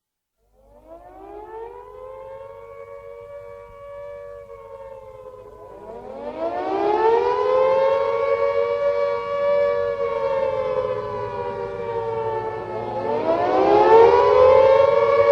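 WW2-style air-raid siren starting up and wailing: it rises, holds and falls, then rises again much louder about six seconds in, dips and climbs once more near the end. This rise and fall is the air-raid warning, over a low rumble.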